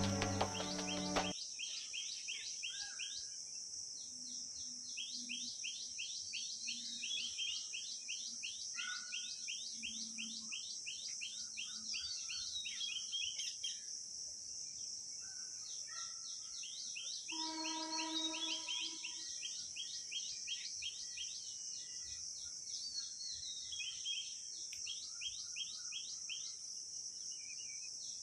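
Outdoor bird and insect ambience: a steady high insect drone under rapid, repeated bird chirps that run in bursts. About 17 seconds in, one longer bird call of a second or so with several stacked tones stands out.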